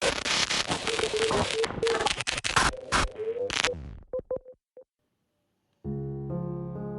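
An electronic glitch sound: crackling static chopped into quick bursts, with a short beep recurring through it. A few separate short beeps follow, then a brief silence, and piano music begins near the end.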